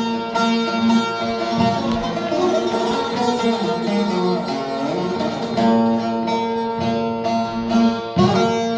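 Instrumental music on a plucked string instrument: a melody picked over steady ringing drone notes, with a few sharp strummed accents.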